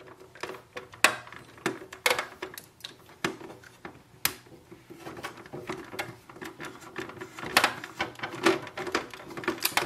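Screwdriver unscrewing screws from a printer's plastic ink tank unit, with irregular small clicks and knocks of the driver and the plastic parts being handled.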